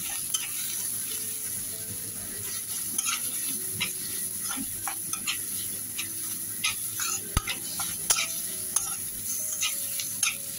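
Sliced onions with spice powder sizzling in oil in a metal karahi, with a steady hiss, while a metal spatula stirs them, scraping and clicking against the pan at irregular moments.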